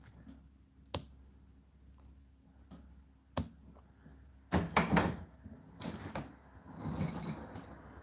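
Door of an Indesit IDC8T3 condenser tumble dryer being opened: a couple of sharp clicks, then a cluster of loud knocks and clacks as the door catch lets go about four and a half seconds in, followed by a stretch of rustling.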